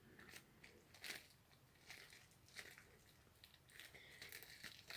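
Faint handling of paper mail packaging: scattered soft taps and light rustles, growing into crinkling near the end.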